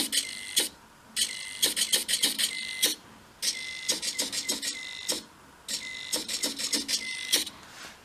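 Morse code sent by a servo-driven homemade key: a high CW tone from the single-sideband receiver beeps on and off in dots and dashes over receiver hiss, mixed with the quick clicking of the hobby servo pressing the key. The same keyed message repeats in four groups with short pauses between them.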